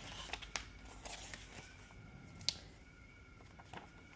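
Faint rustling and scattered clicks of packaging and parts being handled, with one sharp click about two and a half seconds in.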